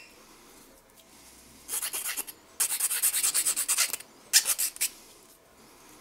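Flat needle file rasping on a G10 knife scale, in three bursts of quick strokes; the middle burst is the longest, about a second and a half.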